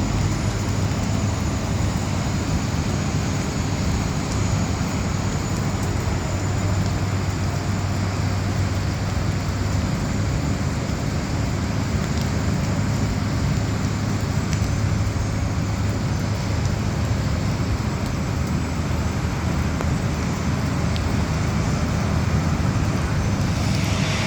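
Airbus A380 jet noise during pushback: a steady low rumble with a thin, constant high whine.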